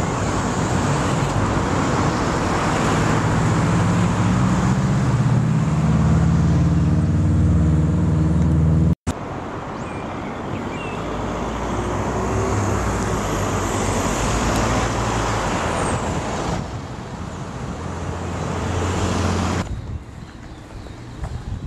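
Road traffic passing, with a heavy vehicle's engine pulling away and climbing in pitch, then a sudden break about nine seconds in. Traffic noise continues afterwards and drops in level near the end.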